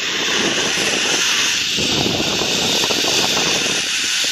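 Zipline trolley pulleys running fast along a steel cable, a steady loud rushing whir, mixed with wind buffeting the microphone at speed.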